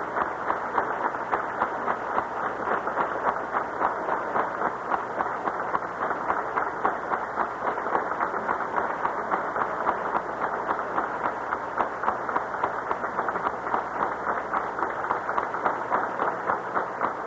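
Theatre audience clapping in a steady rhythm, about two to three claps a second, in time with the ballerina's run of fouetté turns; the orchestra is buried beneath it.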